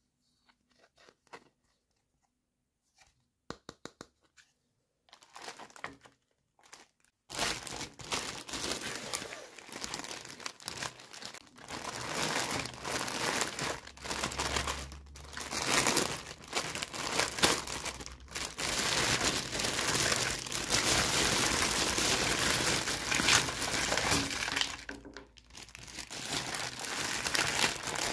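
A thin clear plastic bag packed with plastic doll accessories crinkles and rustles as hands squeeze, open and empty it, with a brief lull near the end. Before that, for the first several seconds, there are only a few light clicks of plastic toys being handled.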